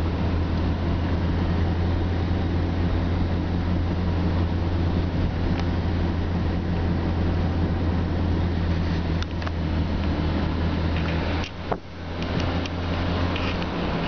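A car driving on a paved road, heard from inside the cabin: a steady low engine drone over road and tyre noise, dipping briefly near the end.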